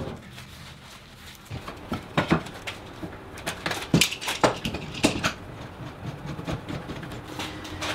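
Scattered knocks and clicks of a freshly steamed wooden strip being bent over a wooden form and clamped in place.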